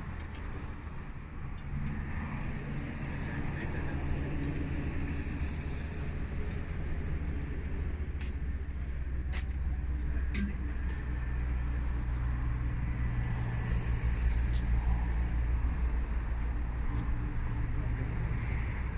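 A vehicle engine running steadily with a low hum that grows somewhat louder in the second half, with a few sharp metallic clicks, typical of tools during a roadside tyre change.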